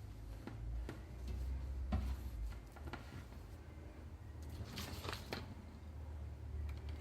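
Soft handling noises, a few light clicks and rustles, over a low steady hum.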